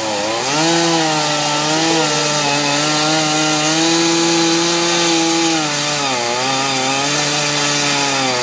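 Two-stroke chainsaw running at high revs while cutting into an upright log, its engine pitch dipping briefly near the start and again about six seconds in before climbing back.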